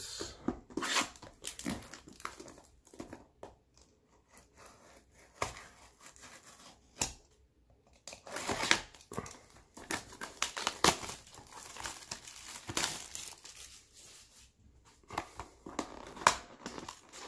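Plastic seal on a cardboard trading-card box being slit with a cutter and pulled off: irregular crinkling, tearing and rustling, with a short pause partway through.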